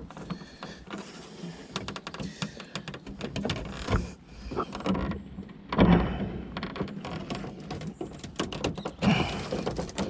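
Plastic tailgate trim panel of a Volvo V70 being pried and pulled off its retaining clips: scattered clicks, creaks and knocks of plastic. A louder knock about six seconds in, as a clip pops out.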